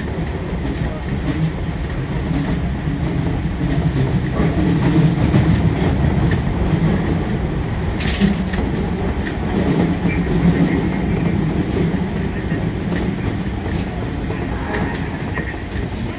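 Subway train running through a tunnel, heard from inside the front car: a steady rumble of wheels on the rails with faint clicking. It gets a little quieter in the last few seconds.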